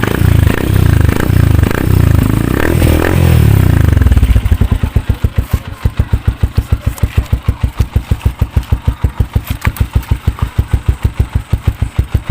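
Motorcycle exhaust through an aftermarket chicken pipe packed with steel wool, revved a few times, then dropping back about four and a half seconds in to an even, pulsing idle.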